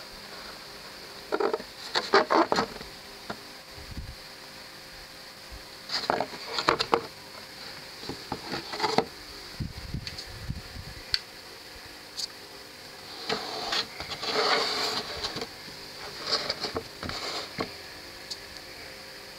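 Cardboard model-kit box being handled and turned over, giving five short bursts of scraping, rustling and tapping over a steady hiss.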